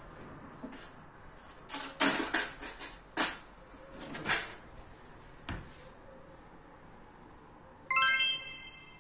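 A few brief rustling, pressing noises from hands working pogaca dough on a silicone baking mat, then near the end a short bright electronic chime.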